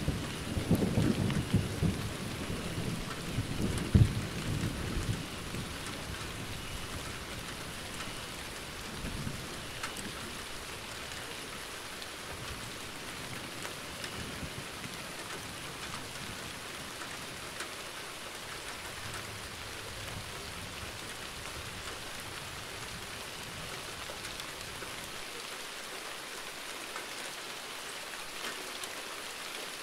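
Thunder rumbling for the first five seconds or so, with a sharper clap about four seconds in, then dying away under steady falling rain.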